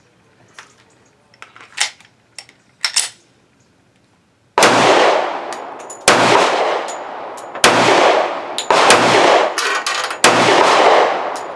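A few light clicks of the pistol being handled, then a Smith & Wesson M&P 2.0 10mm pistol firing 200 grain hard cast bear loads. About five shots come roughly a second and a half apart, starting a little after four seconds in, and each report trails off over about a second.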